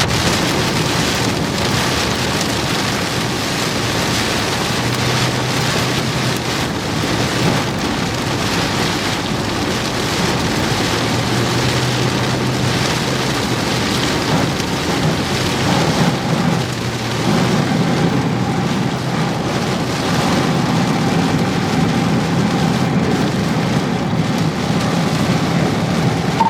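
Heavy rain pelting a moving car, heard from inside: a dense, steady hiss with the vehicle's low road hum underneath.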